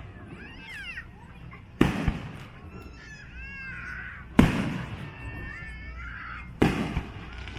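Fireworks shells bursting overhead: three loud bangs about two and a half seconds apart, each followed by a fading rumble, with crowd voices in between.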